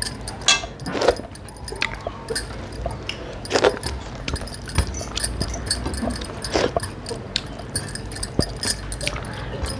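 Close-up eating sounds: irregular chewing, lip smacks and small wet clicks as rice and curry are eaten by hand, over a low steady hum.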